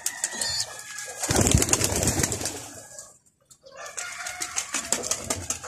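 Homing pigeons cooing in a loft, with many scattered sharp clicks throughout. The sound drops away almost completely for a moment about three seconds in.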